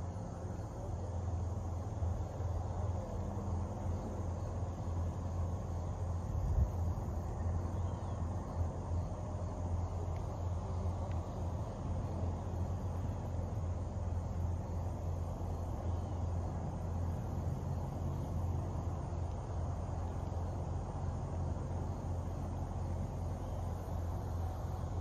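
Outdoor ambience: a steady low rumble with faint insect chirring, and one short thump about six and a half seconds in.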